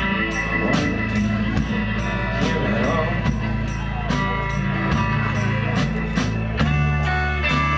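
Live rock band playing a song: electric guitars over drums keeping a steady beat.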